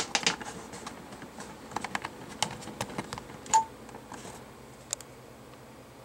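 Scattered small plastic clicks and taps: a quick cluster at the start, then more spread over the next five seconds, as Ethernet cables are handled and their RJ45 plugs clicked into a network switch's ports.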